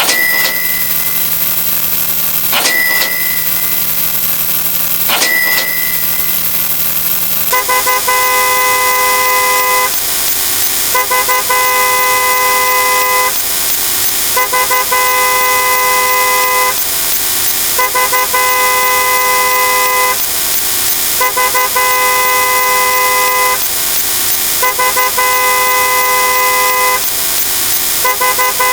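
Repeated sound effects. First, three short tones about two and a half seconds apart, each opening with a click. Then, over a steady hiss, a run of long tones of several pitches sounding together, each lasting about two and a half seconds with short gaps between them.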